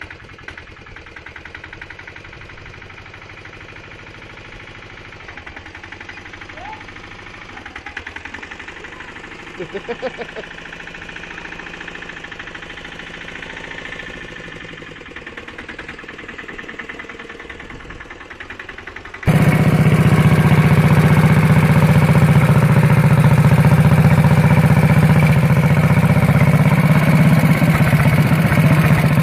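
Walk-behind tractor engines running. For the first part the engine is fainter and even, and about two-thirds of the way through the sound cuts abruptly to a much louder engine.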